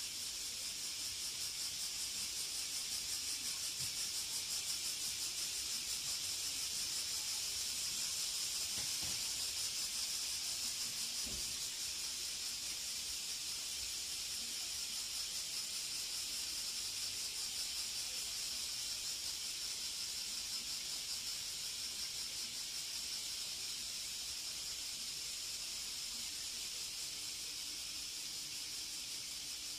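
Steady high-pitched outdoor hiss, with a faint low hum joining near the end.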